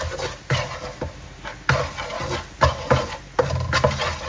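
Black spatula stirring and scraping a thick, bubbling dark caramel sauce with garlic around a nonstick wok, a stroke roughly every half second to second, with some sizzling between the strokes.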